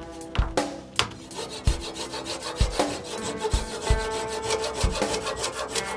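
Hand saw cutting through a 1-inch red oak dowel plug, stroke after stroke, over background music with a steady beat.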